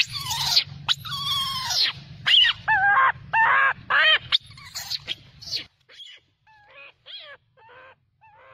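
Macaques, most likely rhesus, calling: a quick series of short, high, pitch-bending calls, each under half a second, which grow fainter in the last few seconds as a low background rumble drops away.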